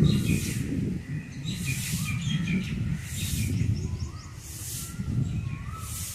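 Birds calling: short chirps, with harsh hissing calls about every second and a half, over a steady low rumble.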